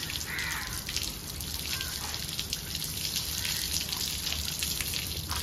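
Water from a garden hose running over a Shih Tzu's wet coat during a bath, splashing and dripping off the wooden table onto the ground.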